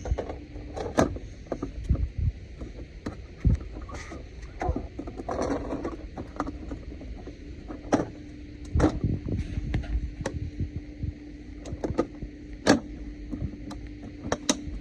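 Irregular clicks and knocks as the parts of an Aiper pool robot vacuum are handled and fitted back on, with a few sharper knocks among them. A steady low hum comes in about halfway through.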